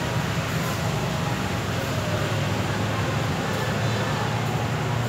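A steady low rumble and hiss of background noise with no clear events.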